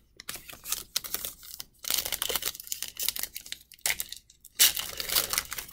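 Stiff football trading cards being handled and slid off one another by hand: a run of quick, irregular clicks and flicks, with a louder rustle near the end.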